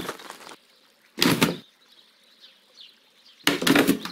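Wooden gate rattling in three short bursts, about a second and a half apart, as it is shaken against its latch.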